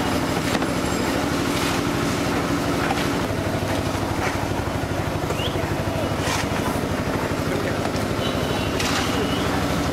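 A steady low mechanical drone, like an engine running, with a fast even pulse. A few faint knocks and short high chirps sound over it.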